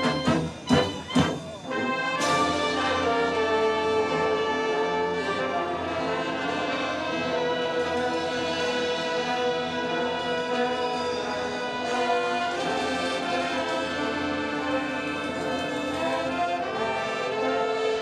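A band with brass horns playing an instrumental introduction: a few short accented hits, then long held chords.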